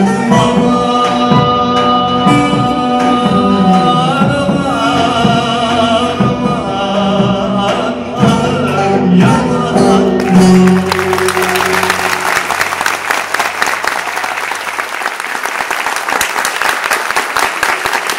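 Live Turkish folk song (türkü): a male voice with choir, saz and guitar, ending on long held notes about ten seconds in. The audience then breaks into applause.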